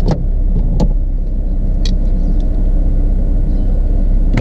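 Steady low rumble of a motor vehicle on the move, with a few short sharp clicks or knocks.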